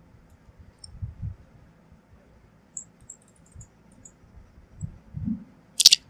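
Computer mouse scroll wheel ticking in a quick run of faint clicks, with a few soft low bumps. A sharper double click comes near the end.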